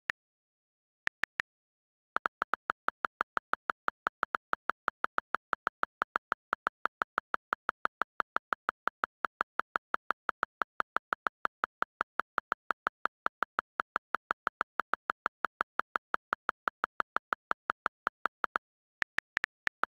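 iPad on-screen keyboard clicks: two single taps, then a long, even run of rapid key clicks, about seven a second, that stops shortly before the end.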